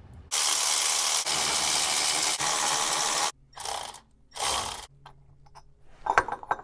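Cordless ratchet spinning out the CV axle's flange bolts at the transmission: one run of about three seconds, then two short bursts. A few light clicks near the end.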